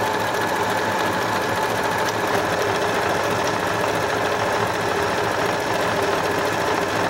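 Janome DC 4030PR electronic sewing machine running steadily at an even speed, needle and feed working through knit fabric on its stretch stitch.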